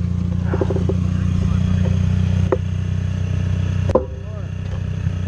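Motorcycle engine running steadily at idle. A sharp knock comes about four seconds in, and the engine sound dips briefly after it, then builds again.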